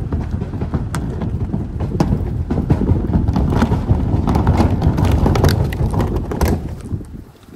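Car driving slowly across a swinging suspension bridge, its tyres rumbling over the deck with scattered knocks and clatters from the planks and hangers. The rumble drops away near the end.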